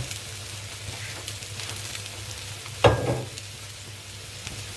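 Tuaran egg noodles and shallots sizzling in a little oil in a wok over a lowered flame, with a single knock about three seconds in.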